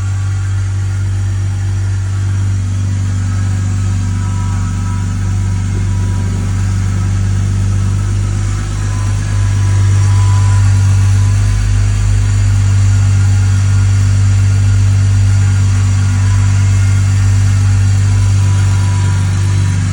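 BMW E46 330Ci's straight-six engine idling after a cold start, with a steady whine over the idle. The engine gets a little louder about ten seconds in and holds there.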